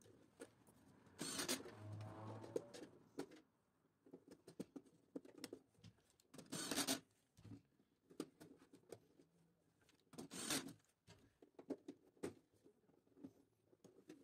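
Quiet handling noises of wiring work in an electrical panel: scattered small clicks and taps as wires are pushed into circuit-breaker terminals, with three brief louder scraping rustles, the first a little after the start and lasting about two seconds.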